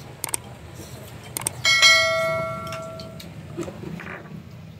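A utensil strikes metal tableware once, giving a bright bell-like ring that fades over about a second and a half, with a few light clicks of dishes just before it.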